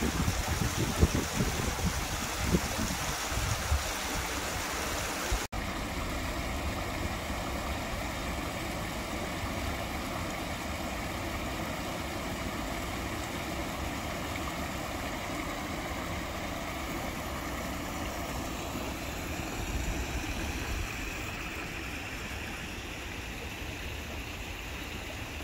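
A shallow stream running over stones and a small weir, a steady rushing and splashing of water. There are low rumbling buffets in the first few seconds, and the sound cuts abruptly to a new shot about five seconds in.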